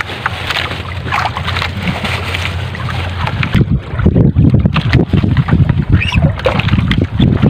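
Wind and sea around a small outrigger fishing boat at sea: a steady low hum with hiss at first, then, about three and a half seconds in, irregular gusty rumbling of wind on the microphone with water moving against the hull.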